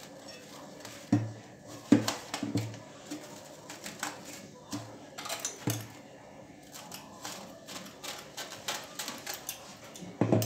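Plastic cling film being pulled off its roll, stretched over a bowl and pressed down: crinkling and rustling, with several dull knocks, the loudest about one and two seconds in.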